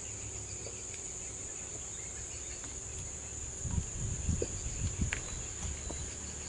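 A steady, high-pitched drone from a chorus of insects. About halfway through, a short run of low thuds from footsteps on loose wooden planks.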